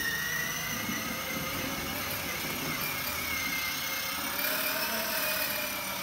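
Electric motor of a battery-powered ride-on toy motorbike, giving a steady high whine that rises slightly in pitch as it drives along.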